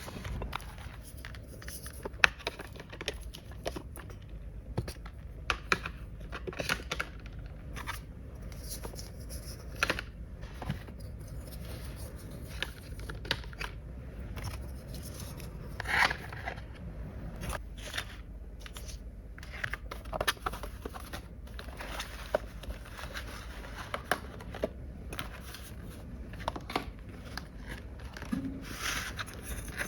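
Irregular small clicks, scrapes and brief rustles of hands handling plastic toy pieces and packaging.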